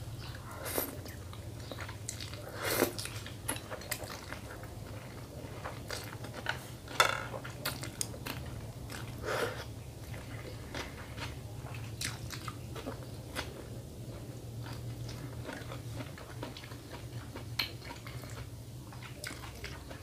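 Close-up eating sounds of a person eating thin rice noodle soup: chewing, with scattered short smacks and clicks. A low steady hum runs underneath.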